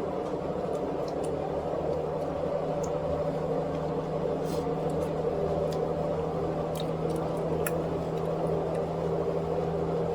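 A steady household machine hum with a low held tone, with faint scattered clicks over it.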